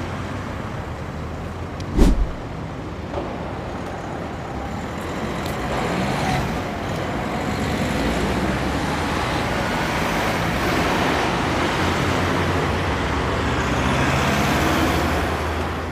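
Honda CB350 RS's single-cylinder engine running on the move under steady wind and road noise, with a single thump about two seconds in. The sound grows gradually louder from about six seconds on.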